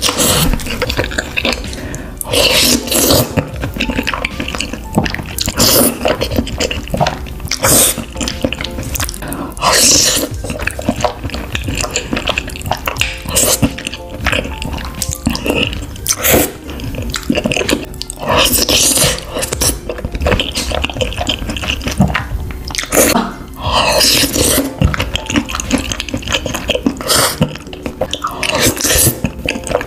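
Wet eating sounds of noodles in cream sauce being slurped and chewed, in irregular bursts every second or two.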